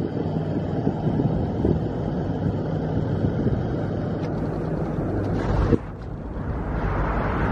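Steady rumble and engine drone of a moving vehicle, with a brief dip in loudness about six seconds in.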